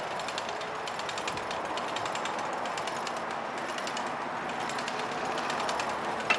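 Steady, rapid mechanical rattling, many ticks a second over a broad hiss.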